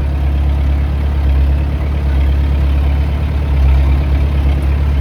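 Tractor engine running steadily with a deep, even drone.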